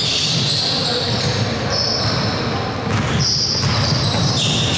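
Indoor basketball game: a basketball bouncing on the court, with the echo of a large gym hall.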